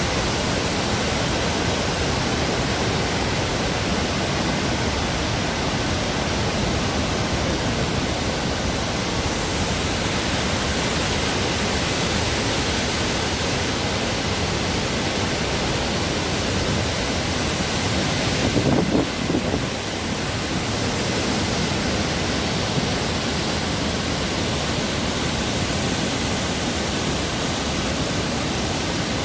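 Waterfall rushing steadily, a dense even roar of falling water, with a brief louder surge about two-thirds of the way through.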